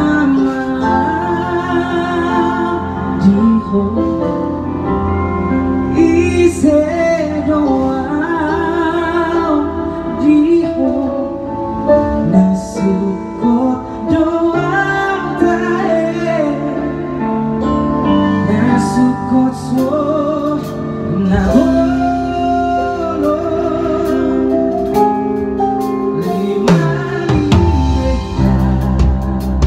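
Live band playing a slow Batak pop song: a singer holds long notes with vibrato over keyboard, guitar and bass. The drum kit comes in near the end.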